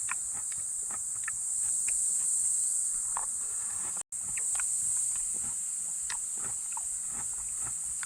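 Insects trilling steadily at a high pitch, with scattered short chirps and ticks over the top. The sound cuts out for an instant about four seconds in.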